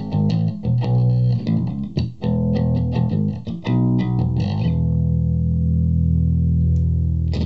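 Japanese '62 reissue Fender Jazz Bass played with the fingers through an Orange Terror Bass 1000 hybrid valve and Class D head into a speaker cabinet, EQ set flat: a run of quick plucked notes, then a low note left to ring for the last few seconds.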